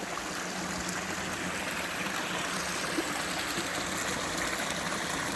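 Mountain stream running steadily, an even rush of water over its bed.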